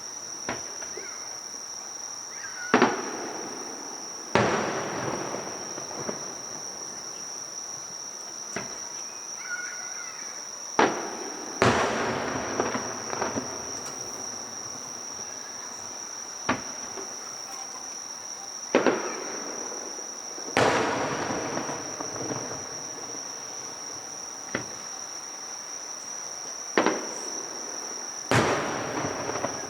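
Fireworks bursting, about a dozen separate bangs at irregular intervals, several followed by a long crackling trail. A steady high insect chirring runs underneath.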